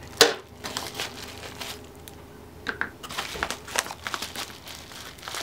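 Small yellow padded mailer handled and pulled open by hand, its paper and plastic crinkling and crackling irregularly, with one sharp crackle about a quarter second in.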